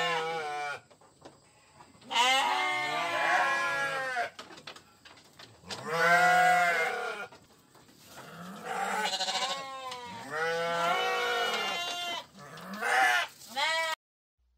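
Sheep bleating, about six calls of a second or two each, one after another with short pauses between; a recorded sound effect laid over toy sheep figures.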